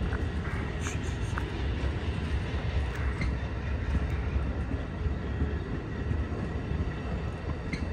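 Amtrak Avelia Liberty (Acela) trainset cars rolling past while being towed, their wheels on the rails making a steady low rumble. A few short high ticks and squeaks sound over it.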